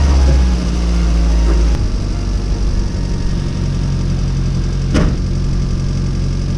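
A car engine idling steadily, with a heavier low rumble in the first two seconds that drops away, and one sharp click about five seconds in.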